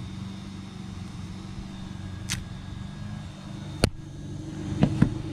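A steady low mechanical hum with sharp metallic clicks and clinks from blue crabs being handled into a stainless steel steamer pot. The loudest clink comes just under four seconds in, and two quick ones come near the end.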